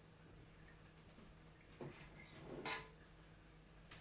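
Faint kitchen handling sounds: a light knock just under two seconds in, then a short scrape and clink of crockery being handled a little later.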